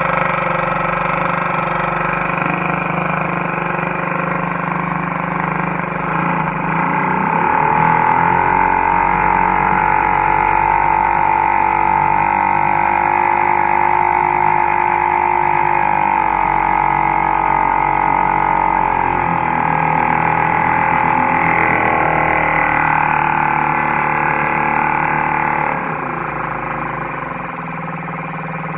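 1948 Hiawatha 1.5 hp two-stroke outboard motor running in a test tank, running pretty good and pumping water. About a quarter of the way in it speeds up and gets louder. Its pitch wavers in the middle, and it throttles back near the end.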